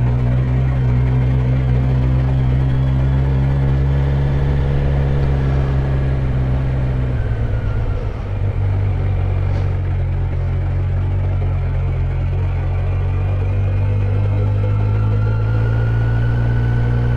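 Motorcycle engine running steadily while the bike is ridden, its note easing off and shifting about seven seconds in, then holding steady again.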